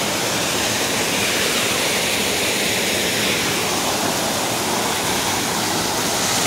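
Muddy floodwater from heavy rain cascading over a stone retaining wall and splashing into a flooded pool below: a steady rush of water.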